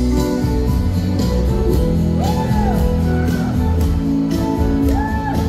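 Live pop song played loud: electric guitar and singing over steady bass and drums, with several notes that bend up and fall back.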